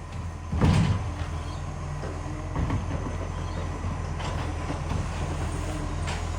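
Garbage truck's diesel engine running steadily with a low rumble, the truck known to have an exhaust leak. A loud clattering thump comes a little over half a second in, with a few fainter knocks after it.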